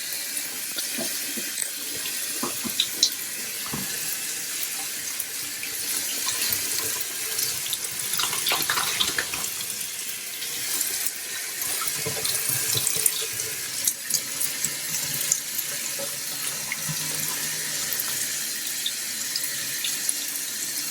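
Running water from a bath tap or shower sprayer rinsing shampoo out of a small dog's coat: a steady hiss with small splashes.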